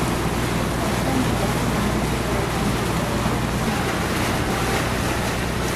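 Boat engine running steadily under way, a constant low hum under the rush of water and wind noise on the microphone.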